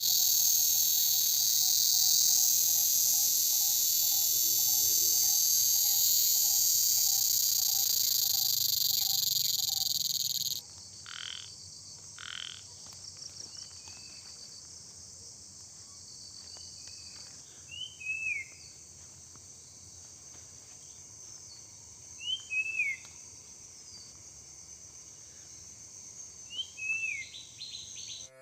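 Dense, loud chorus of crickets and other insects, with a frog calling in a steady series of short croaks about twice a second. About ten seconds in, the insect chorus cuts off abruptly and quieter forest ambience follows, with a bird giving brief chirps every few seconds.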